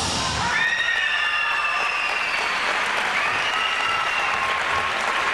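Audience applauding at the end of a rhythmic gymnastics routine, with high-pitched cheering voices held over the clapping.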